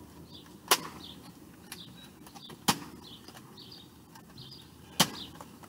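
Nerf foam-dart blaster clacking three times, short sharp mechanical clacks about two seconds apart.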